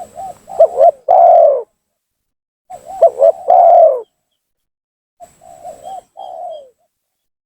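Spotted dove (tekukur) cooing: three phrases, each a few quick coos ending in a longer coo that falls in pitch, the third phrase quieter. It is a male's lively call of the kind played as a lure to provoke and draw in rival doves.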